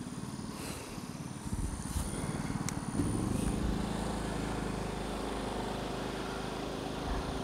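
Generac iQ3500 inverter generator's 212cc OHV engine running steadily. About three seconds in its engine note rises and settles at a slightly higher pitch.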